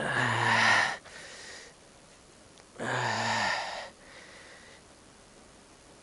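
A man breathing out hard twice, breathy sighs with a low voice falling in pitch, each about a second long and followed by a quieter breath in. The sound of strained effort while working tight screws loose.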